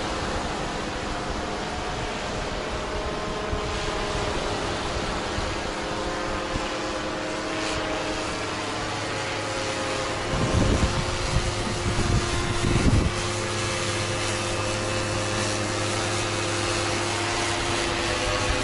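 An engine running with a steady drone, against wind on the microphone. A few low thumps come between about ten and thirteen seconds in.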